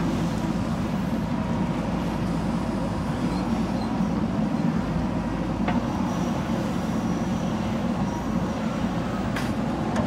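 JCB 3DX backhoe loader's diesel engine running steadily as the machine works its backhoe arm, lifting and swinging a bucket of soil.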